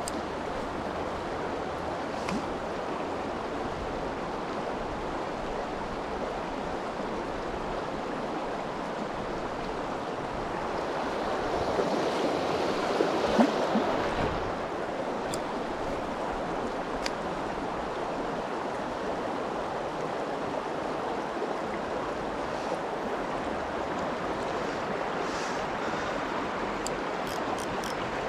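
Mountain stream water rushing steadily, swelling louder for a few seconds around the middle, with a few faint clicks over it.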